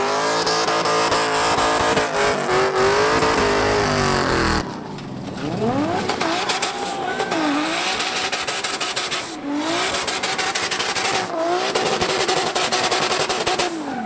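Drift cars' engines running at high revs over tyre screech. For the first four and a half seconds the revs are held fairly steady; after that they rise and dip several times as the throttle is worked through the drift.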